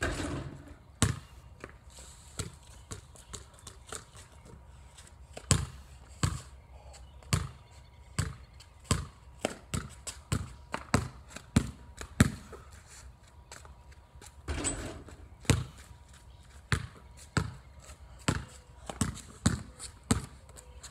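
Basketball bouncing on a wet concrete driveway: single bounces and short runs of dribbles, irregularly spaced. At the very start a shot hits the rim and backboard with a longer, louder clatter.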